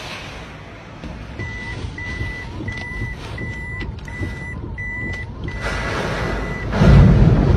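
Electronic alarm beeping about one and a half times a second with a faint warbling tone beneath, turning into one held tone after about five seconds, over typhoon wind noise. Near the end a strong gust buffets the microphone, the loudest sound here.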